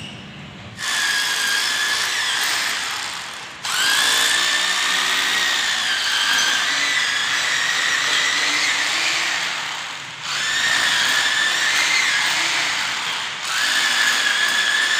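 Electric power drill boring into the concrete floor at the base plate of a two-post car lift column, running in four long spells with a steady high whine, stopping briefly between them.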